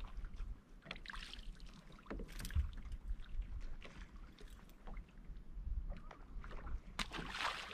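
Wind rumbling on the microphone and small waves lapping against a bass boat's hull, with scattered light knocks and a louder rush of noise about seven seconds in.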